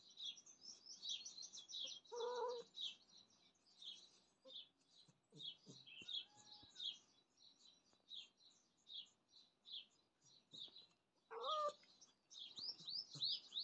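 Small birds chirping rapidly and continuously in the background, with a domestic cat giving two short meows, one about two seconds in and one near the end.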